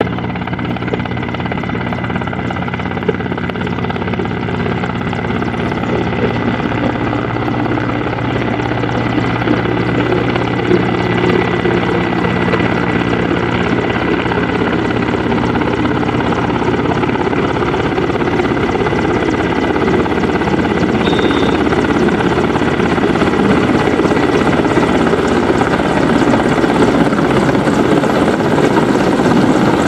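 Mil Mi-171Sh twin-turboshaft transport helicopter flying low overhead, its rotor and turbines sounding steadily and growing gradually louder toward the end.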